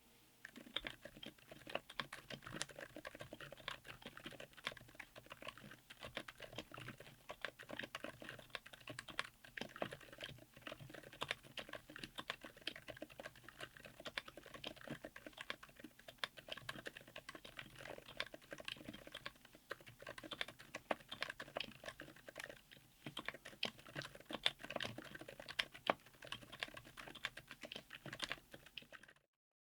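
Continuous typing on a mechanical keyboard fitted with TTC Frozen Silent Bluish White silent tactile switches, on an FR4 plate in an aluminum case. The keystrokes come several a second in an irregular stream, with a dampened bottom-out. The typing cuts off abruptly just before the end.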